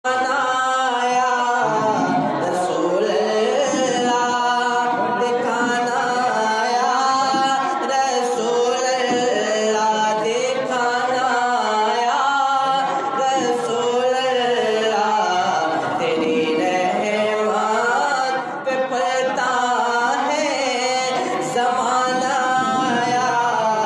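A man reciting Islamic devotional verse in a melodic, unaccompanied chanting voice, holding and bending long notes with barely a pause.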